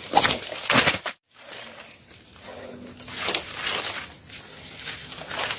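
Crickets chirring in a steady high drone, with several short bursts of rustling over it; the sound drops out completely for a moment about a second in, and the drone is fainter after that.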